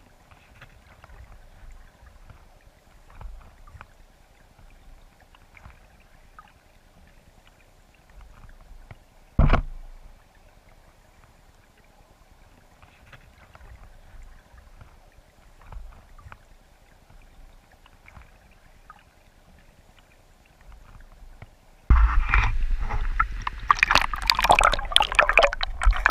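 Creek water heard through an underwater camera: faint ticking and trickling with a single knock about nine seconds in, then, about 22 seconds in, a sudden loud churning rush as the camera goes into fast, bubbly water near the surface.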